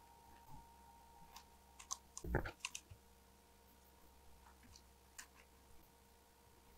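Faint plastic clicks and rattles of logic-analyzer probe micro-grabber test clips being squeezed and hooked onto header pins. A cluster of louder clicks with a soft knock comes about two seconds in.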